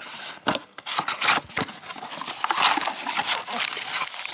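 Packaging of a Panini Prizm basketball blaster box being torn open and its foil card packs handled, a dense run of crinkling and tearing.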